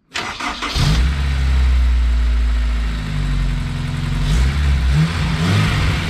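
Honda S2000's rebuilt F20C2 2.0-litre four-cylinder engine cranking briefly and catching under a second in, then settling into a steady idle, running with its accessory drive belt off. It runs evenly, sounding pretty good.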